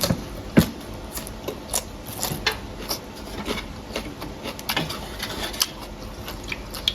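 Close-up eating noises as a mouthful of noodle soup is chewed: a run of small, irregular clicks and smacks.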